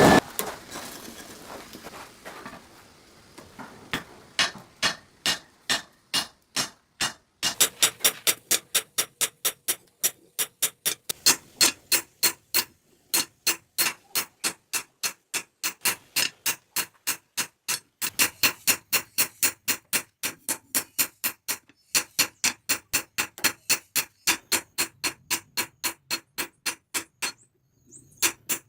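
Forging hammer striking steel on an anvil in a steady rhythm, about two to three blows a second, each with a short metallic ring. The blows are sparse at first and settle into a regular run about seven seconds in, broken by a few brief pauses.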